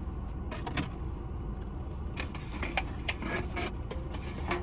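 Scattered small clicks and crinkles, like a plastic takeout container or bag being handled, over a steady low hum.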